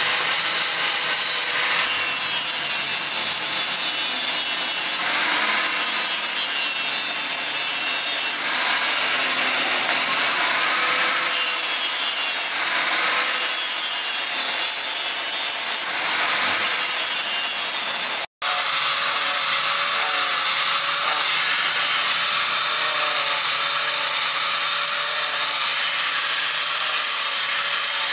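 Angle grinder running with an abrasive wheel, grinding notches into the spine of a steel knife blade; the harsh grinding comes and goes every couple of seconds as the wheel bites the steel over a steady motor whine. After a brief break about two-thirds in, an angle grinder fitted with a sanding pad runs steadily along the blade.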